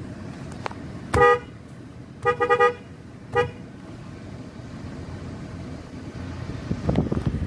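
Horn of a 2023 Toyota Tacoma SR sounded in short toots: one about a second in, three quick ones around two and a half seconds, and one more just after three seconds. A steady low idle of the truck's 3.5 L V6 runs underneath, with a louder low rumble near the end.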